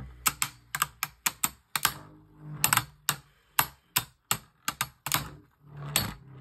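Two Beyblade Burst tops, Wyvron W1 and W2, clashing in a plastic stadium: a run of sharp, irregular clicks and knocks.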